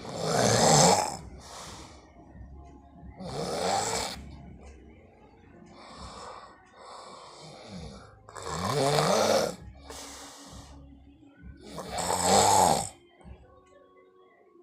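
A man snoring in his sleep: four loud snores, one every three to four seconds, with a fainter one between the second and third.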